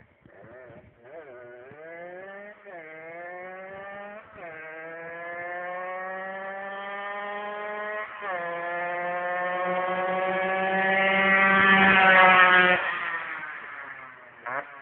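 Rieju RS2 Matrix moped's two-stroke engine, bored out with an 80 cc MHR Team kit and a Carenzi crankshaft, accelerating hard through the gears: the pitch climbs in each gear and drops at each of about four upshifts. It grows louder as it closes in, then the throttle is shut near the end and the engine note falls away.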